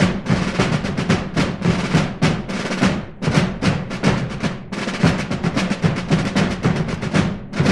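Colonial fife-and-drum corps music: snare drums beating rapid strokes and rolls in a marching rhythm.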